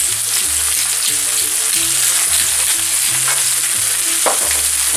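Zucchini ribbons frying in olive oil in a frying pan: a steady sizzle.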